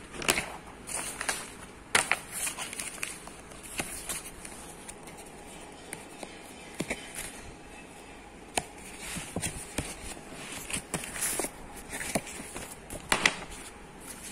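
Paper pages of a textbook being turned and handled: scattered rustles, crinkles and sharp clicks, the loudest about two seconds in and again about a second before the end.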